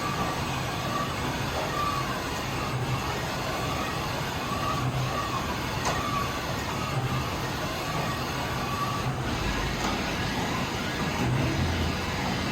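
Hardinge Bridgeport VMC 1000P3 CNC vertical machining center running, a steady machine noise with a high whine that wavers and a low hum that swells about every two seconds.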